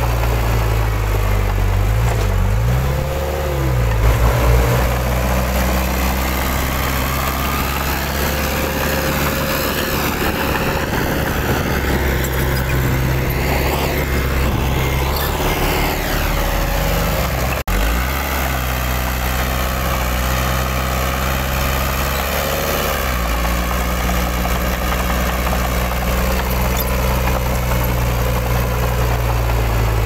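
Diesel engine of a heavy construction machine running without a break, its pitch falling and rising several times as it is throttled. There is a brief sudden dropout about two-thirds of the way through.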